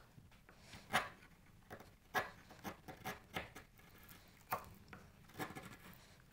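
A sharp chisel worked bevel-down by hand, scooping and paring curled shavings out of a curved cut in a wooden board. It makes a string of faint, short, irregular slicing and scraping strokes.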